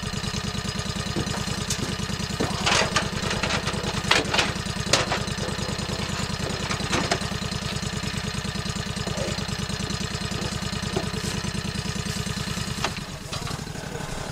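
John Deere Gator utility vehicle's engine idling with a steady throb, with several clunks and knocks as a deer is heaved into its steel cargo bed. Near the end the engine sound drops away as the vehicle pulls off.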